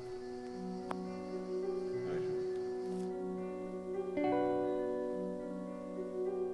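Slow instrumental background music: sustained held chords, changing to a new chord about four seconds in.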